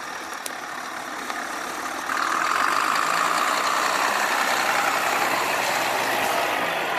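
Heavy truck engine running as the truck drives, a steady rumble that grows louder about two seconds in and then holds.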